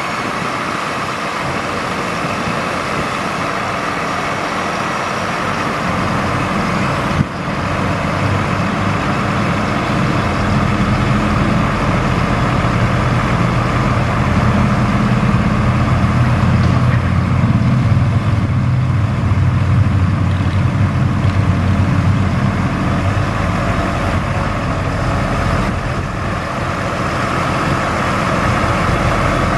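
Truck engine running to power the National N80 hydraulic crane as the boom is lowered and folded down. The engine note grows louder and fuller from about ten seconds in, then eases off near the end. There is a single sharp click about seven seconds in.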